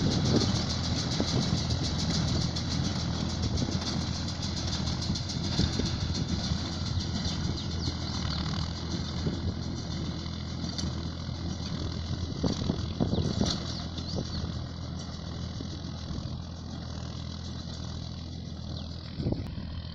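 Ford tractor engine running steadily under load as it pulls a working International square baler, the baler's mechanical clatter mixed in. The sound grows gradually fainter as the rig moves away.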